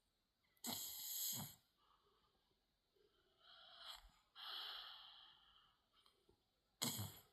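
Snoring of someone fast asleep: a loud snore about a second in, softer drawn-out breaths through the middle, and another short, sharp snore near the end.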